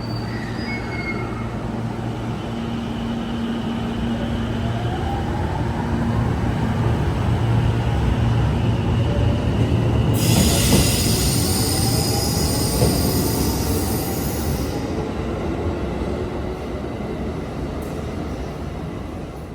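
Passenger train moving slowly past, its running rumble growing louder toward the middle and then easing off. Partway through, a high squeal of the wheels or brakes sounds for about four seconds.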